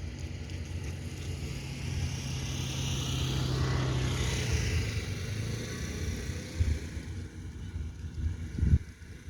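Sea wash that swells and fades about two to six seconds in, over a steady low hum and gusty wind rumble on the microphone. There is a sharp thump near the end.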